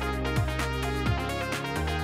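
Electronic background music with a steady beat: a thudding kick drum and fast, even ticks over held synth chords.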